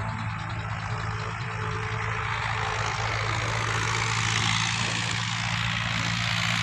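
Dabang tractor's diesel engine running steadily while it pulls a bed-forming implement to make carrot beds, slowly growing louder.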